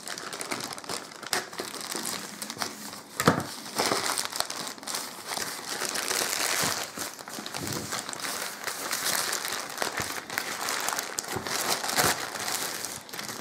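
Plastic postal mailer and inner plastic bag being torn open and crumpled by hand: continuous crinkling and crackling of thin plastic film, with one sharper, louder crackle about three seconds in.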